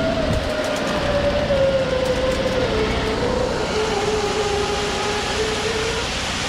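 A concrete mixer truck's engine running steadily, its drone easing slowly lower in pitch.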